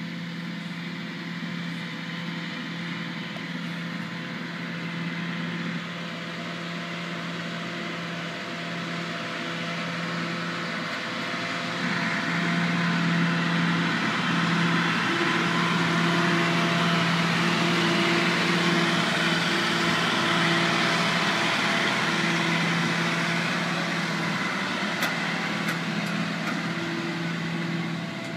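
Self-propelled crop sprayer's diesel engine running with a steady hum as the machine drives across the field toward the microphone. It grows louder about twelve seconds in as the sprayer comes close, then eases off near the end.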